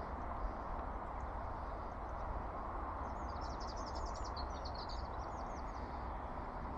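Steady rush of river water, with a small bird singing a quick run of high notes from about three seconds in for two or three seconds.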